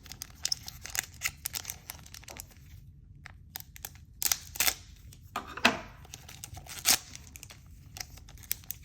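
Handling of trading cards and their plastic and foil packaging: scattered rustles, crinkles and small clicks, with a few sharper snaps about four to seven seconds in.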